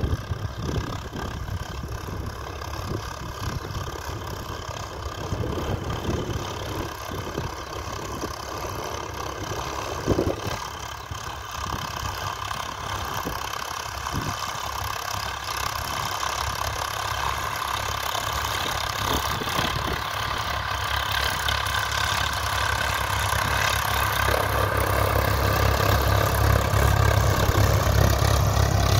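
Swaraj 855 and 963 tractors' diesel engines running under load as they pull disc ploughs through the soil, growing steadily louder as they draw close and ending in a strong low hum. There is one brief knock about ten seconds in.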